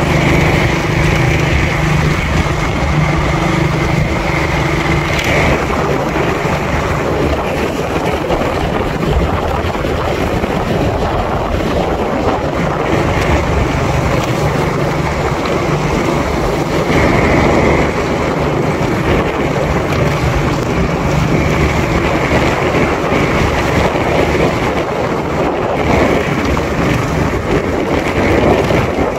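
Motorcycle engine running at a steady road speed, with wind rushing over the microphone.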